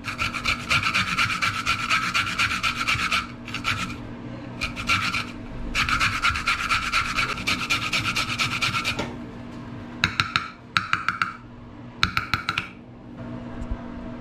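Lemon being zested on a small flat stainless-steel hand grater: quick scraping strokes of the peel across the metal teeth, in long runs broken by short pauses, then a few brief bursts before it stops.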